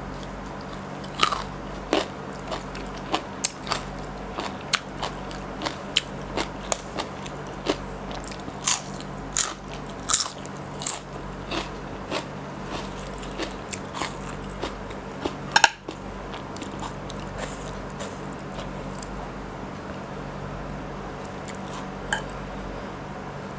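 Close-miked mouth sounds of biting and chewing crisp raw vegetables such as green Thai eggplant and lotus stem, with sharp crunches about once or twice a second. There is a loud snap about sixteen seconds in, and the sound then settles into quieter chewing.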